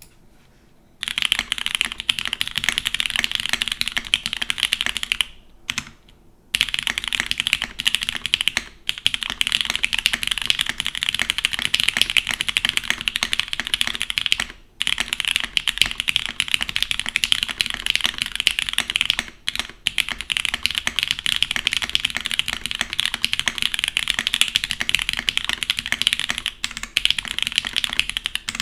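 Fast continuous typing on a mechanical keyboard with Cherry MX Black linear switches in a nylon plate and GMK keycaps, a dense run of clacky keystrokes. The typing starts about a second in and breaks off briefly a few times, longest around six seconds in.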